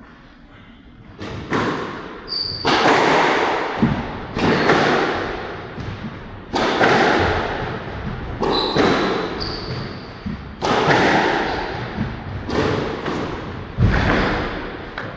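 Squash rally: the ball struck by rackets and hitting the court walls, one loud strike about every one to two seconds, each trailing off in reverberation, with a few short high squeaks.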